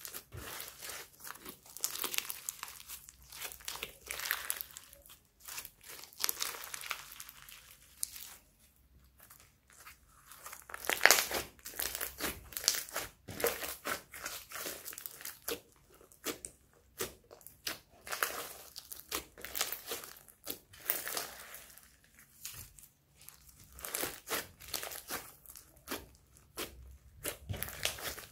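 Slime packed with foam beads being kneaded, stretched and pressed by hand: irregular sticky crackling and popping as it pulls apart and squashes. Briefly quieter about eight seconds in, with the loudest pop about eleven seconds in.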